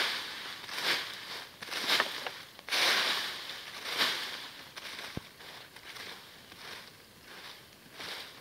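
Dry oak leaves being swept aside with a branch used as a rake: a rustling swish about once a second, fainter in the second half, with a single sharp click about five seconds in.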